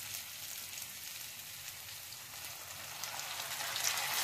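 Sliced onions and spices sizzling steadily in hot mustard oil in a kadhai. Near the end the sizzle grows louder as tomato purée goes into the hot oil.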